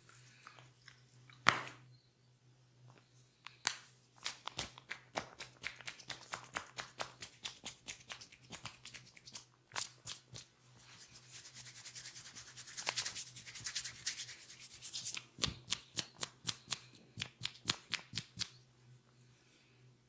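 Hands massaging a person: a quick run of sharp slaps or pats, about three or four a second, with a stretch of brisk rubbing in the middle, over a steady low hum.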